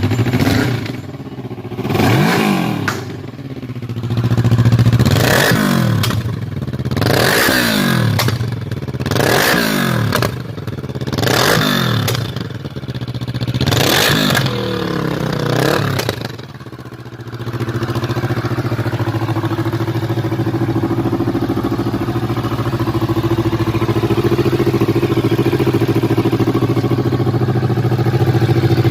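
Kawasaki Versys 650's 649 cc parallel-twin engine being revved in repeated blips, about seven rises and falls in pitch, then settling about 17 seconds in to a steady idle.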